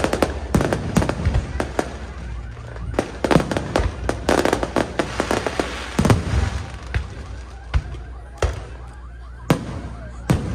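Aerial fireworks bursting in a string of sharp bangs, thickening about three seconds in into a rapid barrage with crackling before thinning back to single booms.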